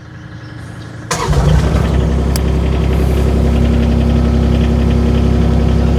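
A hydraulic digging machine's engine catching about a second in, then running steadily at idle.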